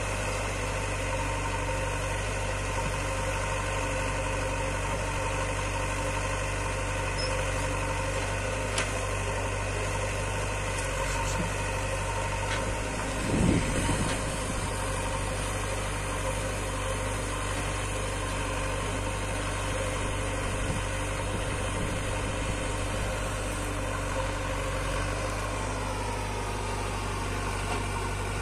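Diesel engines of a tractor and a backhoe loader idling steadily. A short loud knock comes about halfway through, and the engine note drops slightly near the end.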